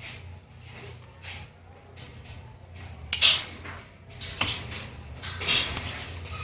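Small hard laptop parts being handled while a DC power jack connector is fitted: a few brief clicks and scrapes, the loudest about three seconds in, over a steady low hum.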